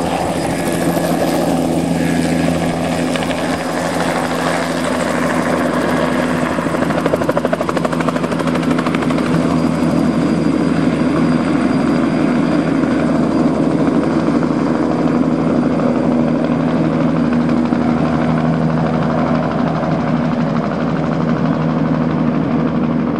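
Bell 206 JetRanger helicopter lifting off and climbing away: the steady whine of its Allison 250 turboshaft and the rapid beat of its main rotor at takeoff power.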